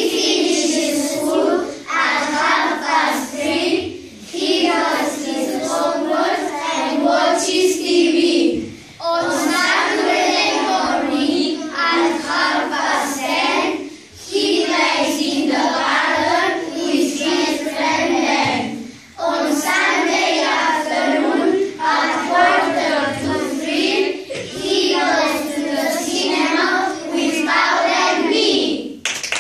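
A class of children singing together in unison, in phrases of about five seconds with short breaks between them.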